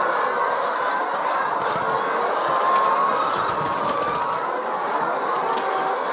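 A large flock of brown laying hens clucking and calling all at once in a steady din, excited at feeding time as they crowd round the feed.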